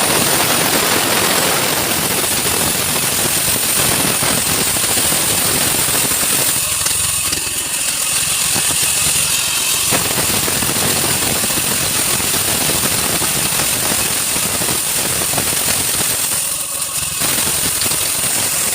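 A woodworking machine running steadily, a loud dense mechanical noise with a fast rattle; its middle range thins out for a few seconds about a third of the way in and again briefly near the end.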